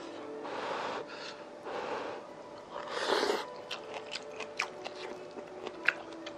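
A man eating spicy hot pot at the mouth: three breathy huffs about a second apart over the hot food, the third the loudest, then chewing and a quick run of small sharp clicks from chopsticks and a small bowl.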